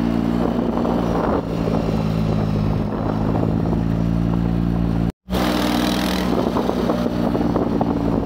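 Quad bike (ATV) engine running at a steady speed while riding over desert sand, with a rushing noise over it. The sound cuts out for an instant about five seconds in and resumes at the same steady drone.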